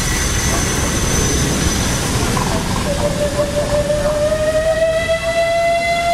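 Cog railway steam train running, its steady rumble heard inside the coach; about three seconds in a steam whistle starts blowing, one long note that rises slightly in pitch as it opens and holds.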